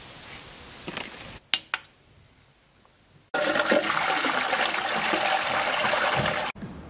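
Toilet flushing: water rushing into the bowl, starting suddenly about three seconds in and cut off abruptly near the end. Earlier, two sharp clicks.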